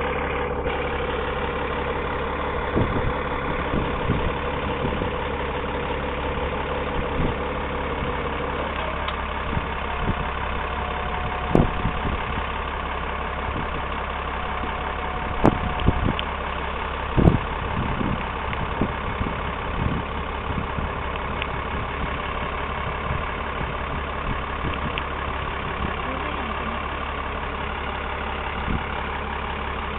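Dodge 3500's Cummins diesel idling steadily while the homemade hydraulic dump bed is raised and lowered by remote. A steady whine stops about a third of the way in, and a few sharp knocks come near the middle.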